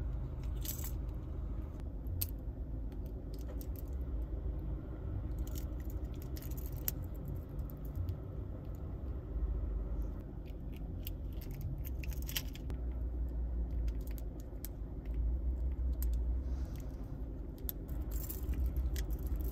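Small metal key-ring and lanyard clasp parts clicking and jangling in the hands while being screwed together, scattered light clicks over a low steady hum.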